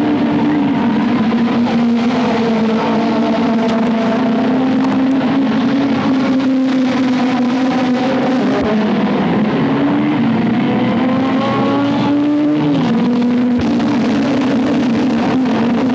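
Car engine running at a steady pitch. Near the end its pitch rises and dips briefly.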